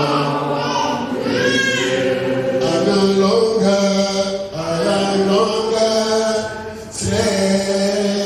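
A man singing a worship song into a microphone in held notes, with a congregation singing along.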